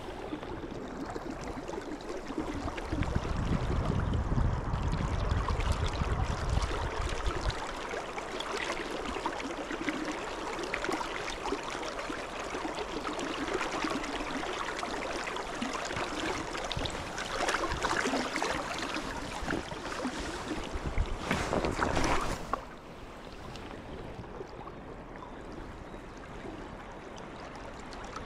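A swollen river running fast, heard as a steady rush of water. A low rumble sits under it for a few seconds near the start, and two louder swells of rushing noise come past the middle before it settles lower.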